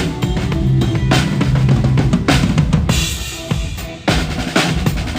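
Live rock band playing a song, the drum kit loudest: bass drum and snare keeping the beat with cymbal crashes about every second, over a steady low pitched part and other instruments.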